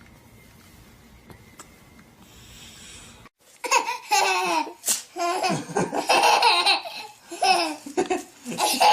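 Faint background noise, then after a sudden cut a young child laughing hard in repeated high-pitched bouts.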